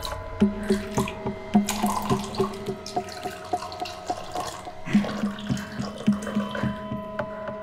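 Liquid dripping and trickling in a rapid, irregular patter of small drops and splashes, over a steady sustained tone.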